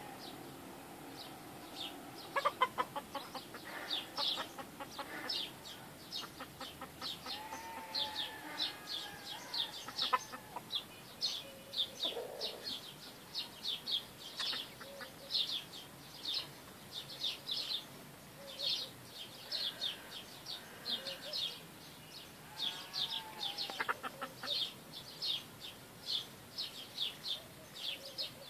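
Free-range village chickens, a rooster and hens, clucking as they forage, with a few drawn-out calls and short runs of rapid clucks. A steady run of high, quick chirps goes on behind them.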